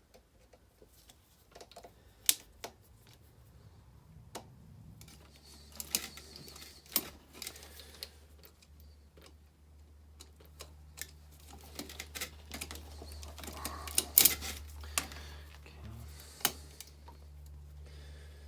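Irregular small clicks and light taps of hand work on the well pump's electrical wiring as the wires are disconnected. A low steady hum comes in about five seconds in.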